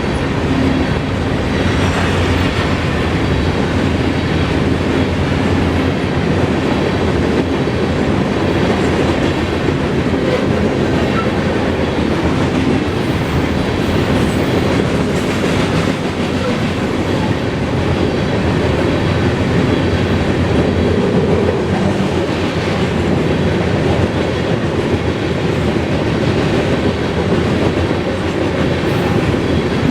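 CSX grain train of covered hopper cars rolling past at a steady, loud level, its wheels clacking over the rail joints.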